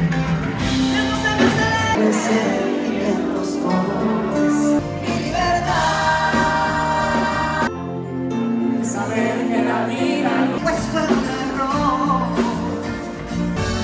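A pop song sung live into microphones over loud amplified backing music, heard from the audience through a phone microphone.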